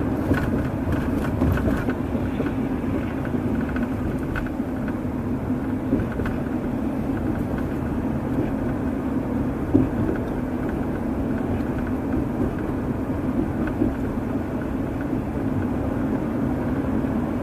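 Steady road and engine rumble of a car driving at low speed, heard from inside the cabin, with one brief thump near the middle.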